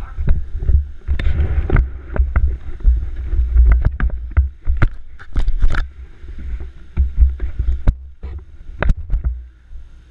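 Handling noise on a helmet-mounted camera's microphone: a heavy low rumble with many sharp knocks and rubs as the motocross helmet is picked up and moved about. It eases off near the end.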